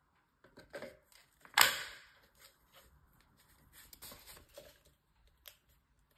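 A DeWalt battery pack slid onto a DeWalt cordless random orbit sander and latching with one sharp plastic click about a second and a half in. Lighter plastic knocks and rattles follow as the sander is turned over in the hands.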